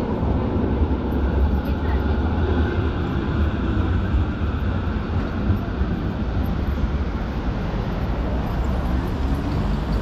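Steady city traffic noise with a deep rumble, from trams and cars moving around a busy square.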